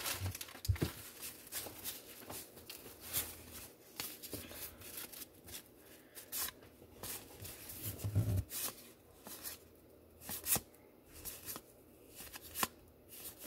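Baseball trading cards being flipped through and handled, an irregular scatter of light clicks and rustles.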